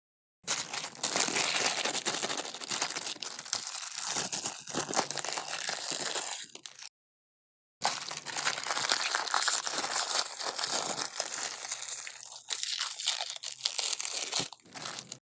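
Meat grinder crunching and squelching material through, a dense, continuous crackling noise. It comes in two stretches of about six and seven seconds, each cut off abruptly.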